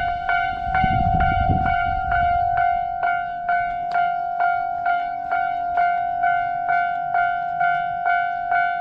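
Railway level crossing warning bell ringing its repeated "kan-kan" clang, about two strikes a second, each strike leaving a ringing tone. A low rumble lies under it for the first two seconds or so, then fades.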